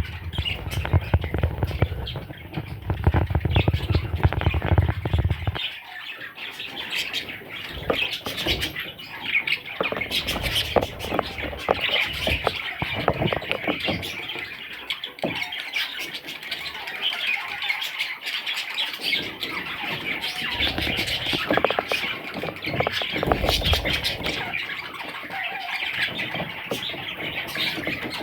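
Budgerigars chattering and squawking, a dense, continuous warble of chirps. A low rumble runs under the birds for the first five seconds or so and stops suddenly.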